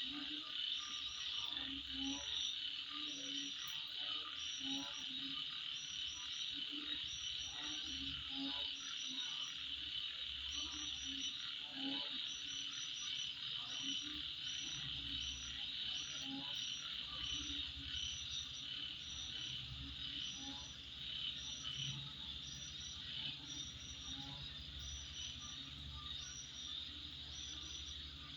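Night insect chorus: a steady high-pitched drone of crickets, with short chirps above it in twos and threes. A lower call repeats about once a second through the first half, then fades out.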